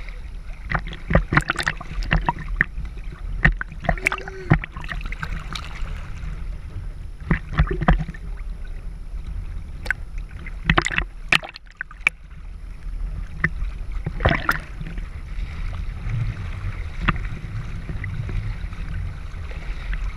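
Water sloshing and gurgling around a half-submerged action camera bobbing at the surface, with irregular sharp pops and knocks as the waterline washes over the housing.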